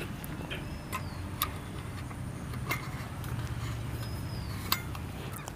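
Scattered light clicks and taps from a butane gas canister and a small portable gas stove being handled, over a steady low rumble.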